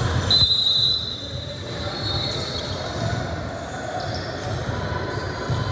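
A ball bouncing on a hard floor in a large echoing hall, with background voices and a short high squeak just after the start.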